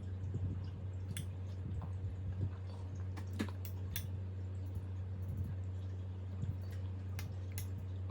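A baby eating: scattered small wet mouth clicks and smacks of chewing, a few sharper ticks among them, over a steady low hum.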